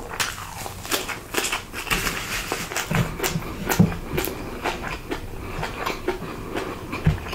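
Close-miked chewing and eating of food, with irregular crisp clicks and smacking sounds.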